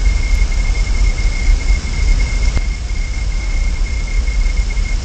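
Uneven low rumble of wind buffeting an outdoor nest-camera microphone, with a constant high-pitched electrical whine running through it.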